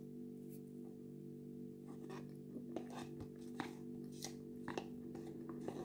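Yogurt being eaten with a metal spoon from a plastic cup: a run of short, sharp clicks and taps of the spoon against the cup and lips, starting about two seconds in, over a steady low hum.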